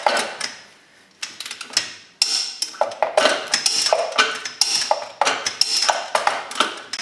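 Torque wrench ratcheting lug nuts tight on a car wheel: quick runs of sharp metallic clicks, with a short pause about a second in.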